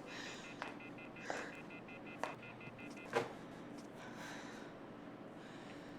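Faint, high electronic tone made of several pitches together, pulsing quickly for about three seconds and then stopping, with a few soft clicks around it over quiet room tone.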